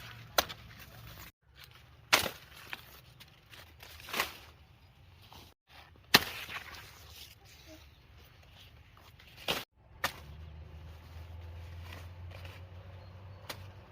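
Sharp knocks or snaps, about six of them one to four seconds apart, the loudest about six seconds in, over a faint low hum.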